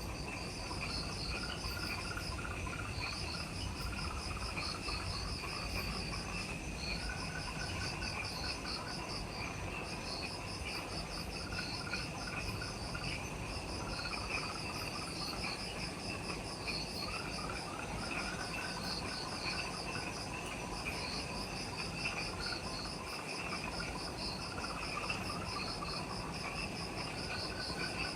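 Chorus of several insects in forest at dusk. A high pulsing trill comes in repeated phrases about two seconds long with short gaps, over a steady shrill drone, with lower chirping trills coming and going.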